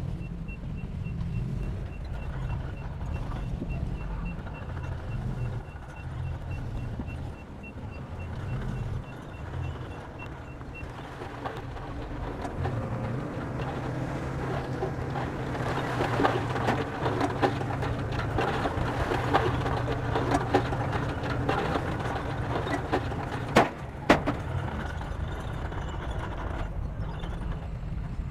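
Bulldozer diesel engine running with a steady low drone and a fast, faint high-pitched beeping for the first ten seconds or so. From about twelve seconds in, dense metallic clatter and squeal of the working tracks and blade builds up, with two sharp knocks a moment apart near the end.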